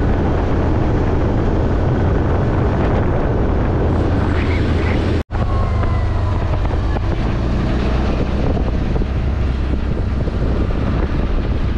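CFMoto side-by-side buggy driving, its engine running steadily, with wind buffeting the microphone. The sound drops out for a split second about five seconds in.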